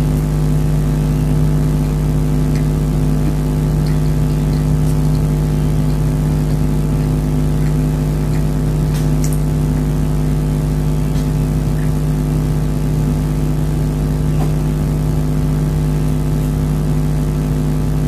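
Steady, even machine hum of a running motor such as a fan, holding the same several pitches throughout, with a few faint soft clicks of chewing soft cake.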